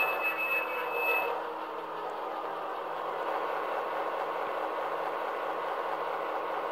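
Soundtraxx Tsunami 2 decoder playing EMD diesel switcher engine sound through the small cube speakers of an HO-scale MP15AC model locomotive, a steady engine drone as the model creeps along. A high steady tone cuts off about a second in.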